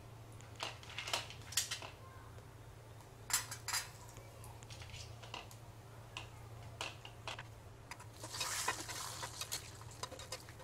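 Flat metal spatula clinking and scraping against a metal kadai while stirring coconut pieces and cashew nuts frying in ghee. A handful of separate clinks, then a longer stretch of scraping near the end.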